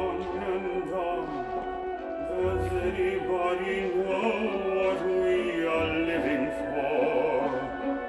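Soundtrack music of a pyromusical fireworks show: a grand orchestral, operatic-sounding passage with sustained notes and deep bass, and no sung words.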